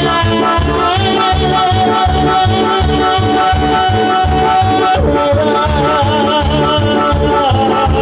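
Live Tierra Caliente band music, loud, with brass and a pulsing bass beat under long held melody notes; a singer finishes a line about five seconds in.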